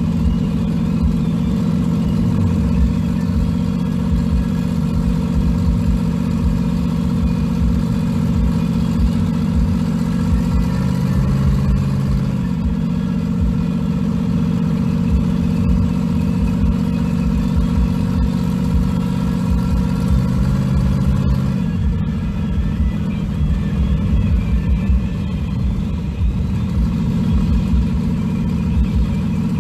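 Engine of a 1500-horsepower Chevrolet S10 street truck running at a steady cruise, heard from inside the cab as a deep, even drone. Its note shifts a little about eleven seconds in and changes again about twenty-one seconds in.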